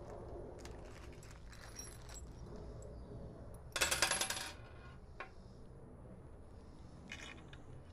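Small hard objects rattling and clinking in a quick flurry for just under a second about four seconds in, the loudest sound, amid soft handling clicks, with one lone click soon after and a shorter rattle near the end.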